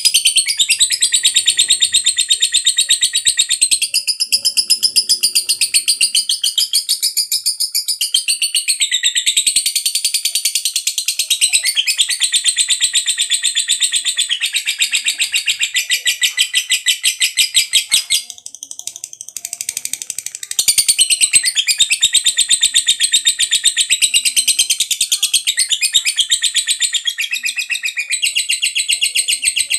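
Lovebird giving its long 'ngekek' chatter: a loud, high, very rapid chattering trill held on and on, the sustained song prized in fighter lovebirds. It breaks off for about two seconds roughly two-thirds of the way through, then picks up again.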